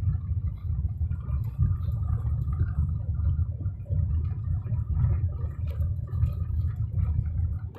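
Car driving over a rough off-road track: a heavy, uneven low rumble with scattered knocks and rattles.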